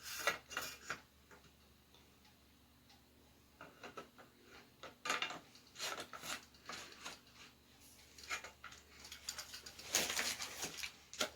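Irregular clicks, taps and small metallic clatter as the parts of a Stoeger 12-gauge pump-action shotgun are handled and fitted together. There is a quiet pause about a second in, and the loudest flurry of clicks comes near the end.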